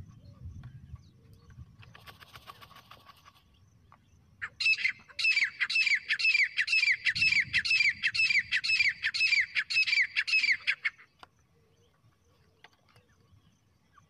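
Recorded teetar (francolin/partridge) call played as a trapping lure: a fast, even series of high, sharply curving notes, about two and a half a second, lasting some six seconds. A short scratchy rattle comes before it, about two seconds in.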